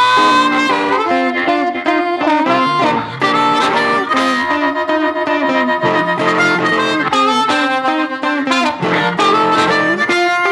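Blues harmonica, a B-flat diatonic harp in second position cupped against a microphone, playing a tongue-blocked study piece in splits and octaves, two notes at once with bent notes, over guitar accompaniment.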